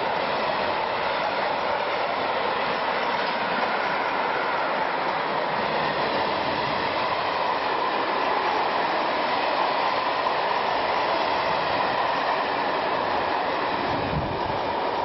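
Freight train wagons rolling past close by: a steady rush of steel wheels on rail, with the last wagon going by near the end.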